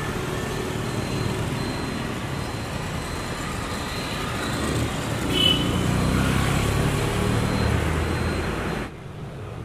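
Busy street traffic: motor vehicle engines running and passing close by, getting louder in the second half, with a brief high-pitched tone about halfway through. The sound cuts off suddenly near the end.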